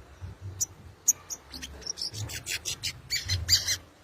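Sogon (sogok ontong) bird calling: sharp, high chirps, a few spaced notes at first, then quicker and harsher notes in the second half, a rapid frenzied call used as a lure to make other sogon birds answer.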